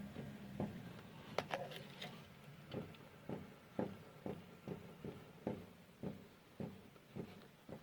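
Front suspension of a VAZ 2109 knocking as the raised wheel is rocked left and right, about two knocks a second. The knocks are play in a worn-out ball joint.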